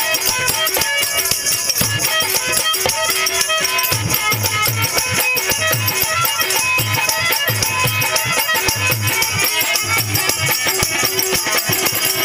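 Instrumental passage of a Hindi folk bhajan: a harmonium plays the melody over a steady dholak rhythm of repeated low drum strokes, with a rattling percussion layer on top and no singing.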